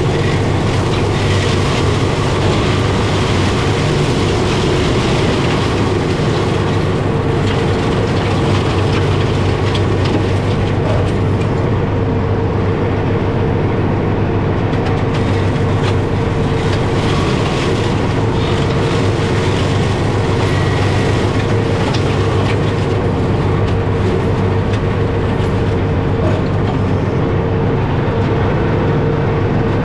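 John Deere 4066M compact tractor's diesel engine running at a steady pitch under load, driving a Fieldmaster PTO mulcher as it chews through thin gorse.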